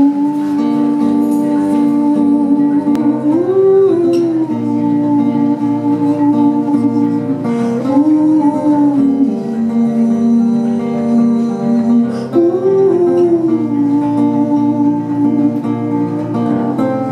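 Live song intro on acoustic guitar, with a long-held wordless vocal note over it that swells upward briefly about every four seconds.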